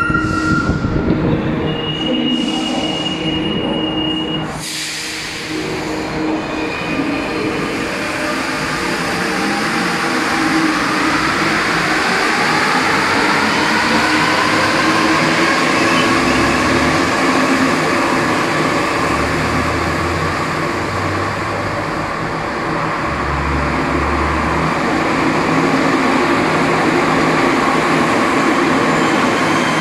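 Alstom NS-16 rubber-tyred metro train pulling away: from about eight seconds in, its traction motors whine in tones that climb steadily in pitch for about ten seconds as it gathers speed, then it runs on at a steady level.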